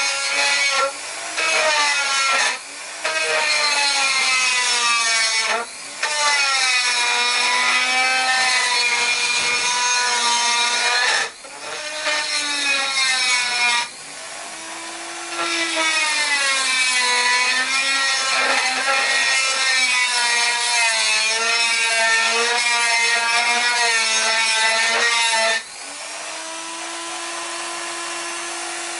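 1990s Dremel rotary tool with a small grinding bit grinding into the bolt holes of a metal lathe mounting plate, squaring off the tapered bottoms of the countersinks. Its high motor whine sags and rises in pitch as it bites and eases off, with several brief breaks, and runs steadier and quieter near the end.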